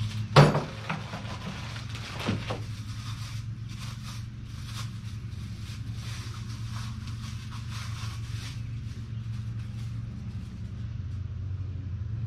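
Thin plastic hardware bags crinkling and rustling as they are opened and handled, with a sharp knock about half a second in, over a steady low hum.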